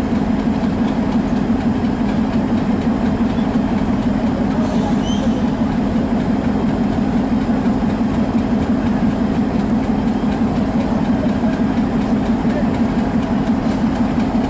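Passenger train coaches rolling past with a steady low rumble.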